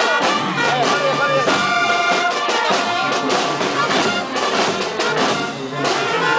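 Military marching band playing live: held brass notes over drum strokes.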